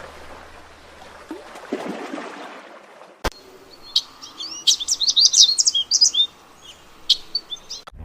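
A small bird chirping in rapid, high-pitched runs of short notes, starting about four seconds in after a sharp click and a stretch of faint background noise.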